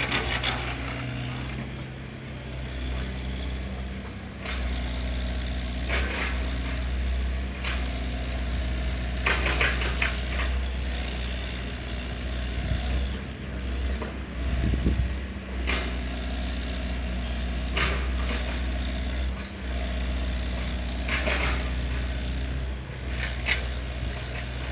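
Diesel excavator engine running steadily, with short clanks and knocks from the machine every few seconds.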